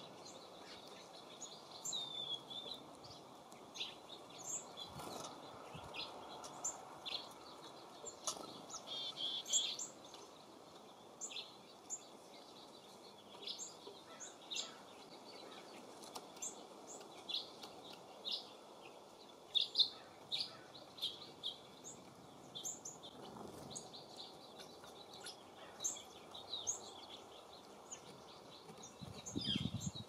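Small songbirds giving many short, high chirps and tweets around a bird feeder, scattered through the whole stretch, over a steady low rush of wind.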